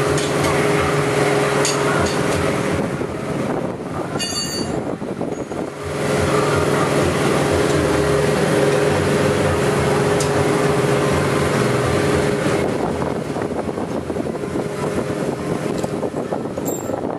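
An engine running steadily with a pitched hum. It eases off about three seconds in, comes back strongly about six seconds in, and drops a little after about twelve seconds. A couple of light clicks sound over it.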